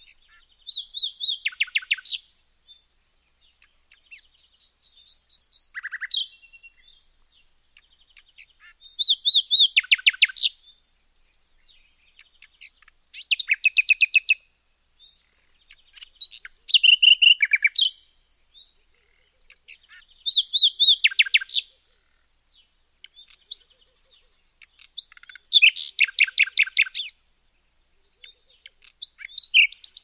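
A songbird repeating the same song phrase about every four seconds: a fast run of rapid chirping notes lasting a second or two that ends in a lower flourish, with short pauses between phrases.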